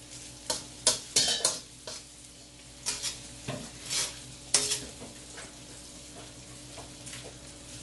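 A slotted spatula scrapes and taps against a wok as scrambled eggs are stirred and turned, over a soft frying sizzle. The scrapes and taps come thick in the first five seconds or so, then only the sizzle remains.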